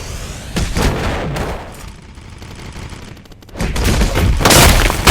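Sharp bangs: two about half a second in, a fast faint rattle of clicks around three seconds in, then a loud blast that builds from about three and a half seconds and is loudest near the end.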